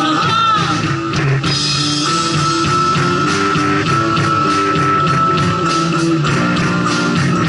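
Rock band playing an amplified instrumental passage: electric guitars, bass guitar, acoustic guitar and drum kit, without singing.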